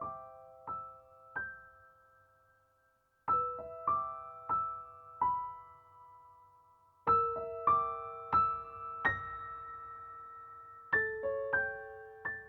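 Slow, gentle solo piano music: short groups of a few struck notes, each left to ring and fade, with brief pauses between the phrases.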